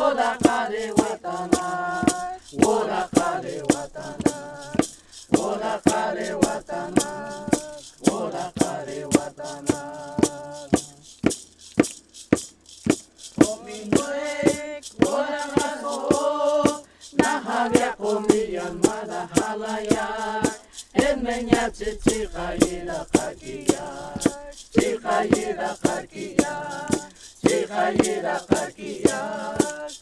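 A group of men and women singing a traditional song together, with a hand rattle shaken in a steady beat of about two strokes a second.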